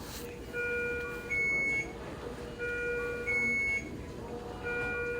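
Electronic alarm tone repeating about every two seconds: a steady chord-like tone, then a louder, shorter single tone, three cycles in a row.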